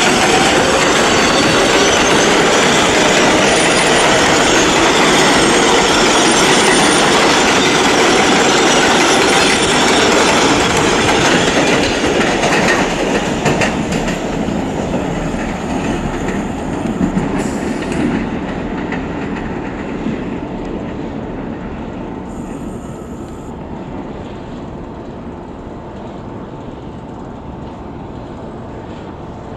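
R-142A/R-188 subway train running on elevated steel track as it pulls away: loud wheel-on-rail clatter and running noise that fades steadily from about halfway through as the train recedes.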